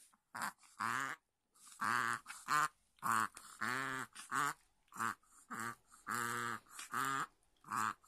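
Chihuahua reverse sneezing: a run of about a dozen short, honking snorts drawn in through the nose, roughly two a second. Reverse sneezing is common in short-nosed breeds, and the owner says it feels like fluid pooled deep in the nose.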